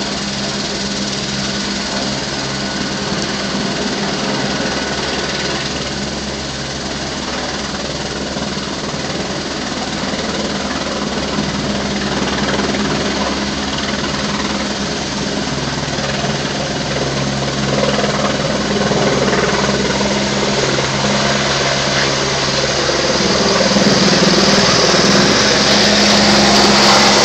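Light turbine helicopter running at takeoff power, its main rotor and turbine engine making a steady drone with a high whine. The sound grows louder in the last few seconds as the helicopter lifts off and climbs overhead.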